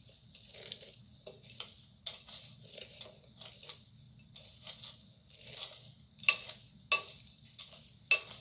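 Irregular light clicks and taps of someone eating cereal from a bowl with a spoon, with three sharper, louder clicks near the end.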